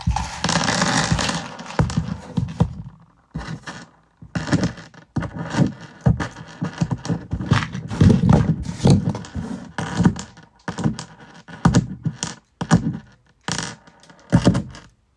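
Small metal screws clinking, knocking and scraping against each other and a hard surface as they are handled and picked up on a magnetic screwdriver tip, in an irregular run of short clicks and rattles.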